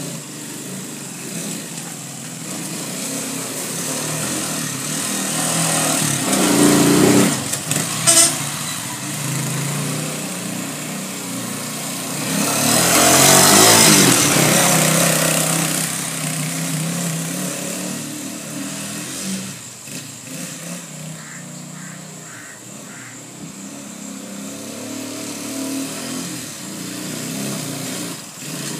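Small 150cc motorcycle engine of a sidecar three-wheeler running as it drives on a dirt track, growing louder around the middle and easing off again. A few sharp knocks about seven to eight seconds in.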